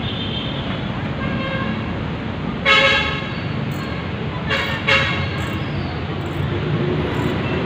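Road traffic with vehicle horns honking several times, the loudest about three seconds in and two more close together near five seconds.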